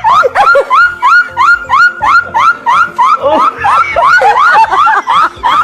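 A woman's high-pitched, rhythmic laugh: a string of squeals about three a second, each one gliding up in pitch, likened to a motor starting. About three seconds in, the squeals turn into more uneven whoops that rise and fall.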